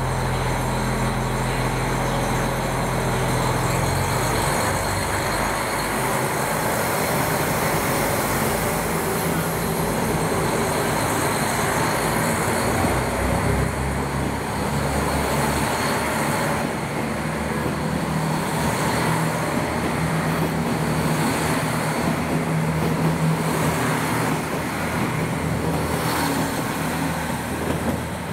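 JR KiHa 261 series 1000 diesel multiple unit pulling away on its own engines. A steady diesel hum for the first few seconds changes, about four seconds in, to the engines working hard under load. The running noise of the cars passing carries on as the train gathers speed.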